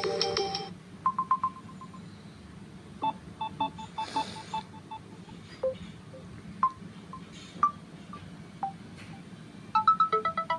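Samsung Galaxy A04 ringtones played briefly one after another through the phone's speaker: short electronic melodies and single chime-like notes, each cut off after a moment, with a fast repeating tune starting near the end.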